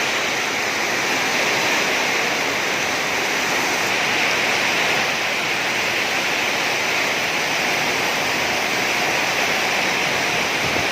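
Steady rush of water in a flood brought on by heavy rain.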